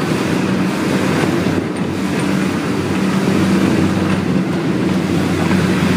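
A bus travelling, heard from inside: a steady engine drone with road noise and a constant low hum.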